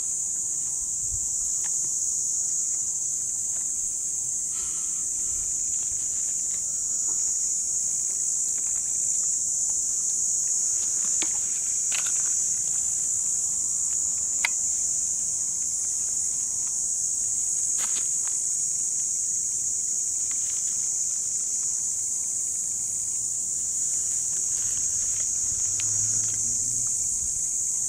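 Steady high-pitched chorus of insects buzzing without a break, with a few faint clicks now and then.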